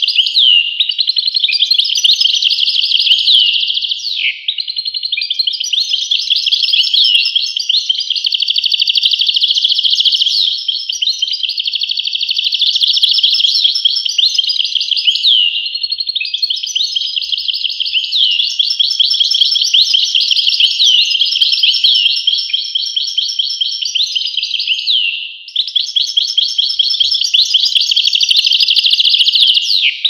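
European goldfinch singing in long runs of fast twittering and trills, with short sliding notes, broken by brief pauses about four, ten, sixteen and twenty-five seconds in.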